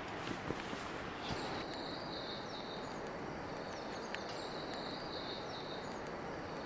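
Outdoor mountain ambience: a steady, even rushing hiss, with a high, shrill animal call that starts about a second in and holds on, pulsing gently.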